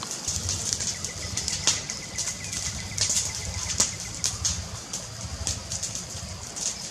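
Wood fire crackling: irregular sharp pops and snaps with a low rumble under them.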